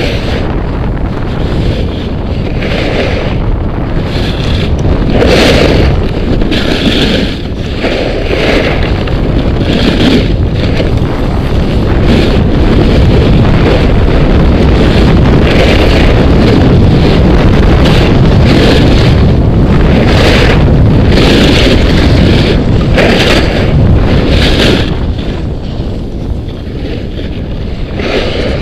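Wind buffeting an action camera's microphone on a snowboard run, loud and continuous. Under it, the snowboard slides on snow, with the hiss and scrape of the board on the snow swelling every second or so.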